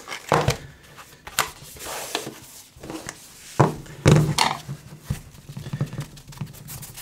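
Unboxing handling: the cardboard box and inner tray are handled and the phone is set down on a work mat, giving a few short knocks and rustles. The loudest comes about four seconds in, with the crumpling of the phone's protective wrapping.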